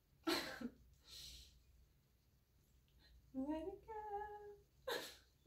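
A woman sings a short phrase: her voice rises and then holds two steady notes. Two sharp breathy bursts come just after the start and again near the end.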